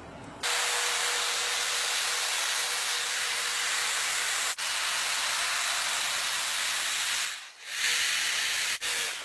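Automatic car wash machine's jets hissing loudly and steadily, starting abruptly about half a second in, with a short break about seven and a half seconds in.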